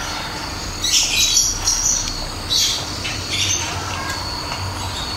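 Night-time outdoor ambience: a steady high-pitched insect drone with bursts of high chirping calls a few times over, and a faint low hum underneath.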